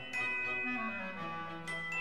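Background music: a melody of bell-like struck notes, several a second, ringing on over a low held bass note.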